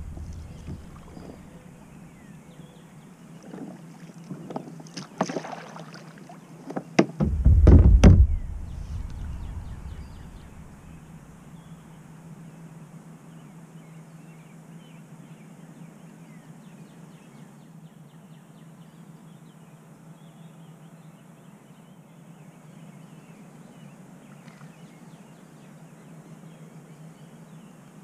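Knocks and rattles of gear against a fishing kayak's hull, building to one loud, deep thump about seven to eight seconds in. After the thump a steady low hum carries on.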